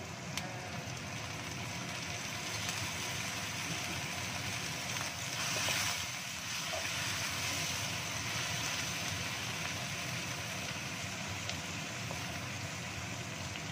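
Carrots and shallots sizzling in a hot wok as water is poured in, while a wooden spatula stirs them. The sizzle swells briefly about five to six seconds in as the vegetables are stirred through the water.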